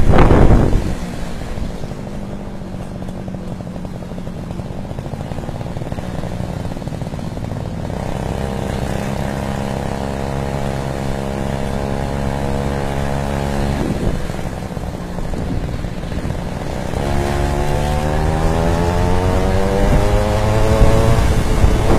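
Small gasoline engine of a stand-up scooter running while riding, holding a steady pitch for several seconds and then rising in pitch as it speeds up near the end. A loud gust of wind hits the microphone right at the start.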